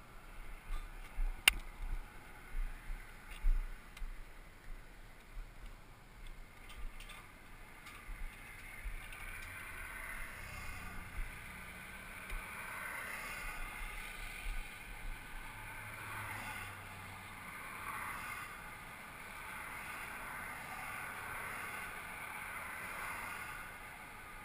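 Knocks and thumps on a helmet-mounted action camera as the wearer moves about, then a steady rush of road traffic passing on the bridge, swelling and fading as each vehicle goes by.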